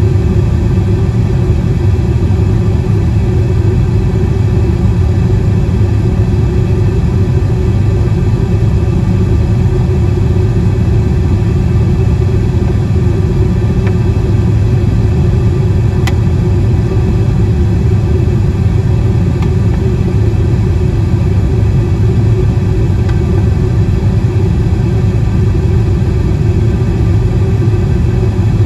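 Steady low rumble of an airliner's engines and rushing air, heard inside the passenger cabin during the climb after takeoff.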